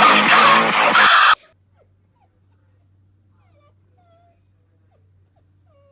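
Dog whimpering and whining in short high cries that rise and fall. It is loud for about the first second and a half and cuts off abruptly; after that only faint whimpers sound over a low hum.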